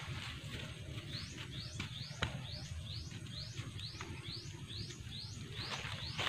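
A rapid series of high chirps, each sweeping upward in pitch, repeated about three times a second. Under it, rustling and a few snaps of leaves and stems being pulled by hand.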